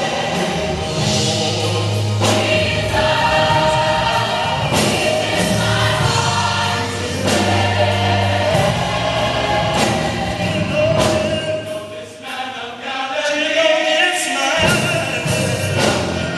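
Large mixed gospel choir singing, growing briefly quieter about twelve seconds in before swelling again.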